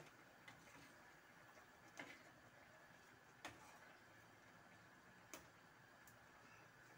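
Metal spoon clicking lightly against a stainless steel frying pan while stirring a simmering coconut-milk stew, about five faint clicks roughly every one and a half seconds over a steady low hiss.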